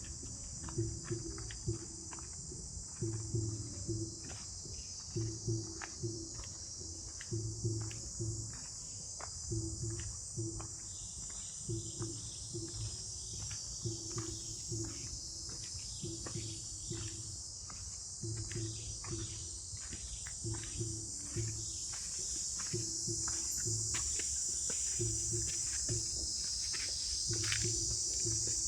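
A chorus of insects buzzing steadily at a high pitch, getting louder in the last few seconds, with regular footsteps on the ground about every second.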